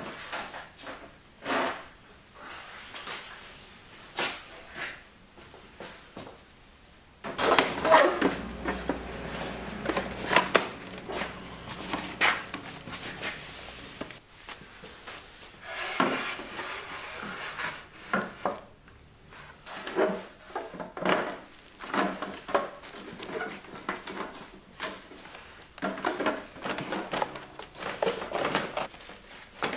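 Repeated clunks, knocks and scraping as book-shaped sculpture pieces are slid and set onto the shelves of a metal shelving unit. The handling is sparse at first and gets busier and louder from about seven seconds in.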